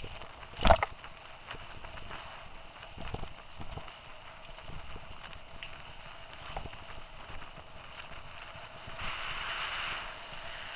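Mountain bike ridden fast on a dirt singletrack: steady rolling and wind noise on the microphone, with scattered knocks and rattles as the bike goes over bumps, the loudest a sharp knock about a second in.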